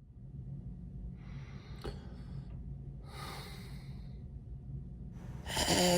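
A person breathing out audibly twice, short breathy puffs, over a steady low room hum; a voice starts up near the end.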